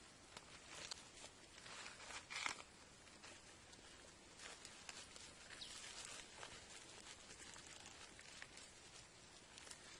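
Faint rustling and crinkling of fresh leaves and grass blades being handled and torn by hand, with a louder rustle about two and a half seconds in.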